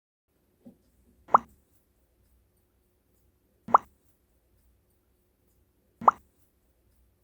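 Chinchilla hiccuping: three short, sharp hics about two and a half seconds apart, with a fainter one just before the first.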